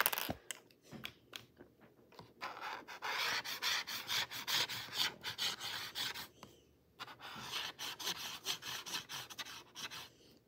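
Brush-tip marker pen rubbing back and forth on textured canvas, close up: two stretches of scratchy rubbing strokes with a short break about two-thirds of the way through.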